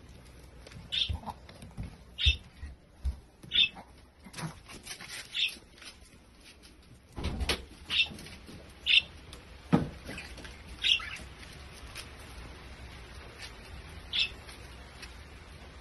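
Small dog whining in short, high squeaky whimpers, about nine of them, a second or more apart, as its owner leaves. A few soft knocks and thuds come between them.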